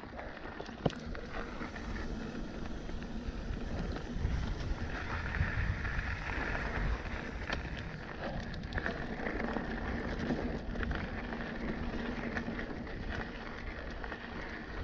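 Trek Remedy full-suspension mountain bike rolling along a dirt trail: steady tyre noise on the dirt with wind buffeting the microphone, and a few sharp clicks and rattles from the bike.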